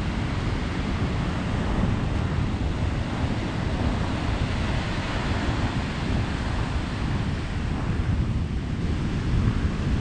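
Rough ocean surf breaking and washing up a sandy beach, with gusty wind buffeting the microphone as a steady low rumble.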